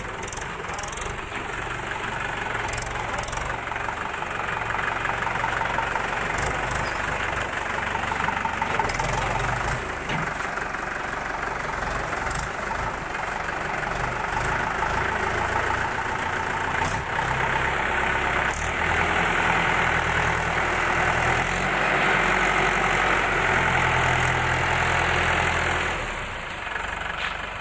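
Mahindra 475 DI tractor's diesel engine running steadily, growing louder a little past the middle and dropping back near the end.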